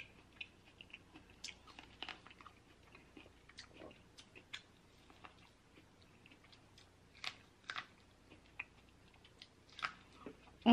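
Chewing corn on the cob: scattered quiet clicks and smacks of the mouth, a few louder ones about two-thirds of the way through.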